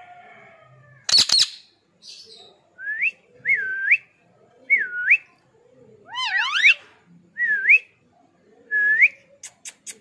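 Ring-necked parakeet giving one loud, harsh screech about a second in, then a run of clear whistles, each a quick dip and rise in pitch, with one stronger rising call in the middle. A few short sharp chirps come near the end.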